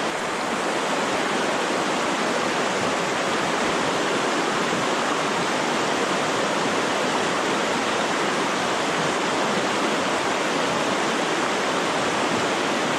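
River rapids rushing over rocks: a steady, loud rush of whitewater with no break.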